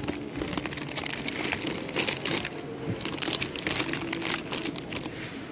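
Clear plastic sleeves around potted orchids crinkling and crackling as they are handled and pushed aside, in irregular rustles.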